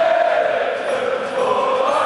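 Large stadium crowd of football supporters singing together in unison, many voices holding long notes that move slowly up and down.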